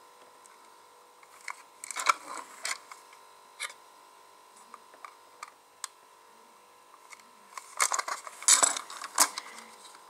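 Small plastic parts of a toy bulldozer kit clicking and rattling as it is handled and its motor wire plugged in. There are scattered clicks, busiest near the end.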